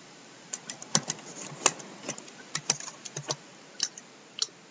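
Typing on a computer keyboard: a quick, irregular run of keystrokes, then a couple of separate clicks near the end.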